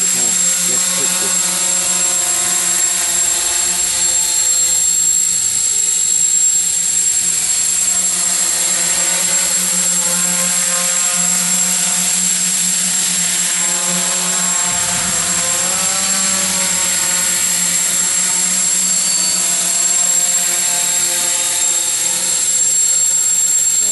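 Hexacopter's six electric motors and propellers buzzing steadily in flight, the pitch wavering as it adjusts, most noticeably past the middle; a constant high-pitched whine sits above the buzz.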